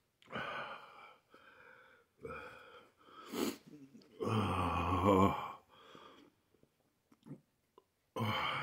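A man breathing hard and wheezing in a string of short, noisy breaths, with a sharp hissing intake about three and a half seconds in and one longer, louder breath with his voice in it just after, from the burn of a ghost pepper in his mouth.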